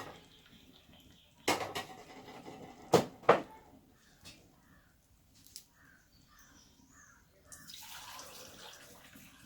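A utensil knocks against a clay cooking pot a few times, loudest twice in quick succession a few seconds in. A short watery hiss follows near the end, and a crow caws repeatedly in the background.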